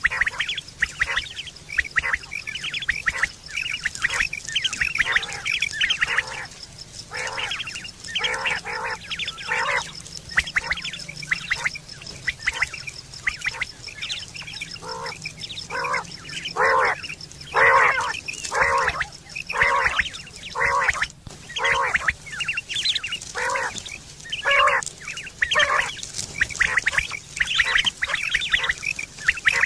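Common quail calling: a long series of short, sharp call notes repeated a few times a second with brief pauses between runs, the kind of recording played as a lure to draw quail at night.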